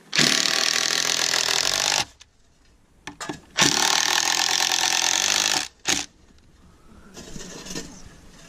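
Power drill running in two bursts of about two seconds each, with a short third burst about six seconds in, as it drives screws into the wooden window-frame bracing.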